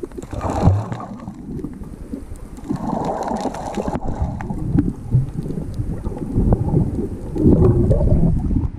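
Underwater sound through an action camera's housing: muffled water rush and bubbling with scattered sharp clicks. It swells louder near the end as the camera rises through a burst of bubbles toward the surface.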